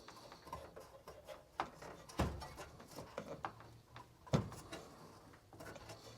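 Small clicks and rubbing, with two sharper knocks about two and four seconds in, as a stuck rubber pressure-switch hose on a furnace is twisted and pulled off its port.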